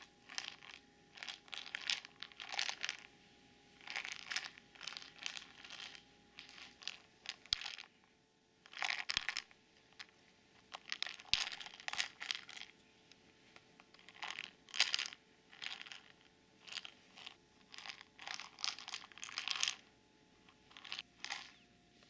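Dry kibble rattling inside a hollow plastic treat ball as a cat noses and paws it along carpet, in short irregular bursts with a brief pause about seven seconds in.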